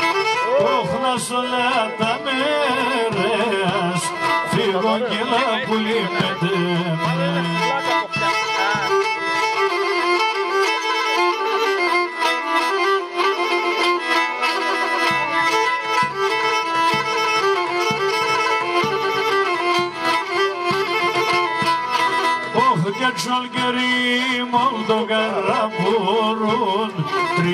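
Pontic lyra (kemenche) playing a Pontic folk tune, accompanied by daouli drum beats.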